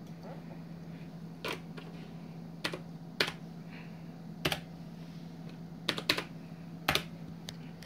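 Computer keyboard keys clicking: about seven separate presses, spaced unevenly, over a steady low hum.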